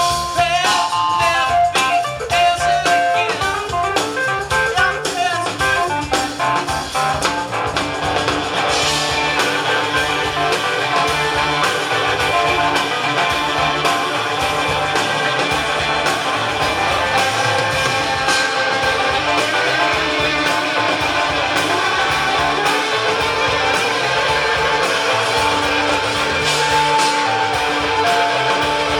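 Rock band playing live through an instrumental passage, with guitars over bass and drums. Picked guitar notes stand out in the first seconds, then the band thickens into a fuller, sustained wall of sound from about eight seconds in.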